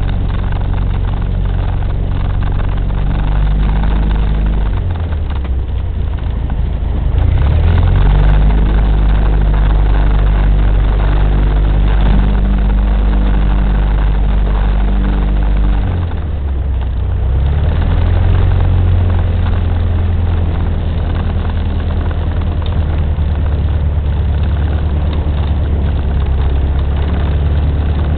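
Cessna 150's Continental O-200 four-cylinder engine and propeller running at low power. The engine note drops and picks up again twice, about a fifth of the way in and again a little past halfway.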